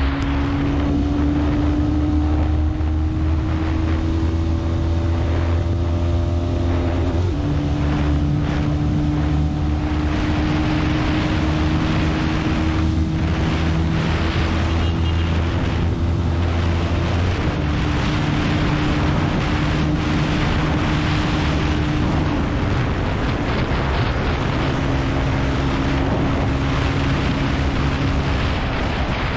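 Bajaj Pulsar NS200's single-cylinder engine pulling at full throttle during a top-speed run, heavy wind rush on the microphone. Its note climbs slowly and drops three times, at upshifts about 7, 17 and 22 seconds in.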